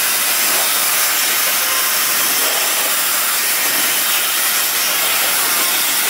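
Dyson Supersonic hair dryer running with its narrow concentrator nozzle fitted: a steady, hissing rush of air.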